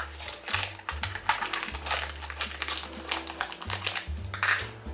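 Plastic wrapping crinkling and rustling in quick, irregular crackles as a vacuum-sealed package holding a fleece throw is opened by hand, loudest near the end. Background music with a steady low bass line plays underneath.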